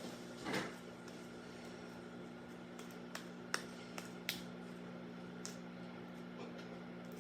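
Slime being mixed by hand: a soft squelch about half a second in, then a few short sticky clicks, over a steady low electrical hum.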